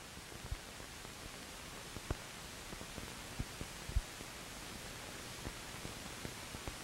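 Steady hiss with a handful of scattered pops, the loudest about four seconds in: the background noise of an old film soundtrack between lines of narration.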